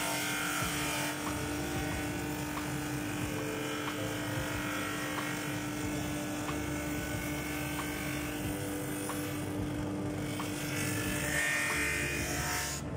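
JIB 21106 drum sander and its chip extractor running: a steady motor hum under the hiss of the abrasive drum sanding a sheet of plywood as the conveyor belt carries it through. The hiss stops suddenly near the end as the board clears the drum. A faint regular tick runs underneath.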